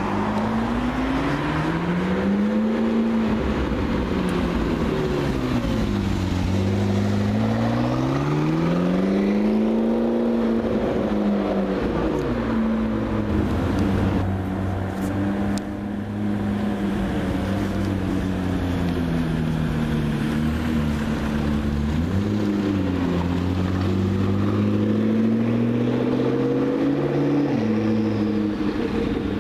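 McLaren MP4-12C's twin-turbo V8 driving at low speed, its note rising and falling twice as the throttle opens and closes, then holding steady, with two short throttle blips near the end.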